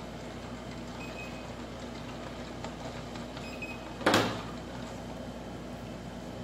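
Two short high beeps from a handheld infrared thermometer, about a second and about three and a half seconds in, over a steady hum. A single loud knock about four seconds in.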